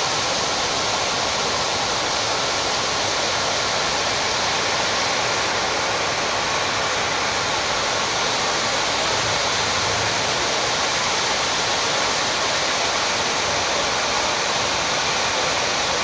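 Water cascading down the stone walls of the 9/11 Memorial reflecting pool and into its central void: a steady, even rush of falling water.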